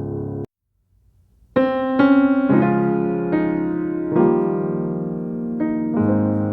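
Background piano music: it cuts off about half a second in, and after about a second of silence a new piano phrase begins with a string of struck notes.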